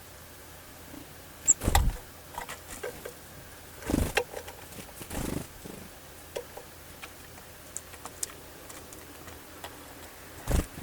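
Small birds feeding, most likely tits: irregular pecking taps and clicks with a few louder dull thumps, and one short high peep about one and a half seconds in.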